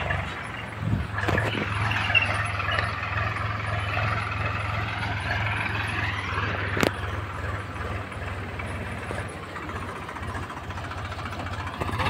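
Diesel tractor engine running steadily while it pulls a tiller through loose soil, with a single sharp click about seven seconds in.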